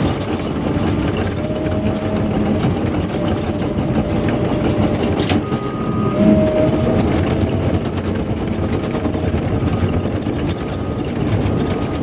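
Cat D5K LGP bulldozer working under load, heard from inside the cab: its diesel engine and steel tracks run steadily as the blade pushes dirt and asphalt millings. Faint high squeaks come and go, and there is a single sharp click about five seconds in.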